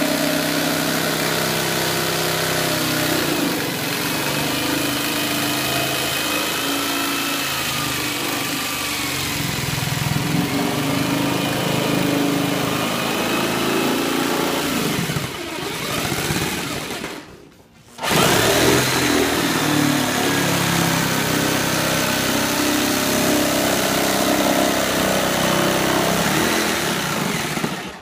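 Handheld electric saw cutting through a plastic car bumper, its motor running steadily with the pitch wandering as the blade takes the load. It stops briefly about two-thirds of the way through, then starts again.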